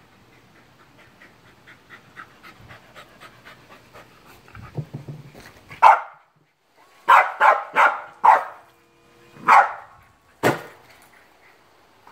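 A small dog panting quickly, then barking about six times at a GoDogGo automatic ball launcher while waiting for the ball. A faint steady whine runs under the barks, and near the end a single sharp snap as the launcher throws the ball.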